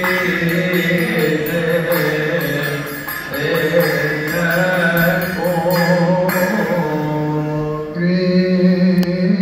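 Male voices chanting a slow, melismatic Coptic hymn together, with hand cymbals keeping a steady beat that stops about six seconds in.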